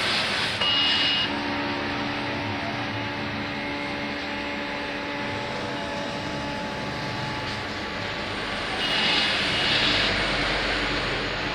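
Paper pattern plotter running with a steady mechanical hum and a few steady motor tones. It grows louder twice, about a second in and again near the end, with a hiss and a high whine.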